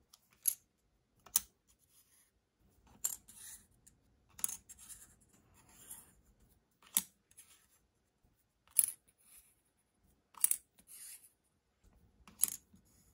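Thin painted paint-test strips being set down one by one on a work sheet: about eight sharp clicks spaced a second or two apart, several followed by a short scrape as a strip slides into place.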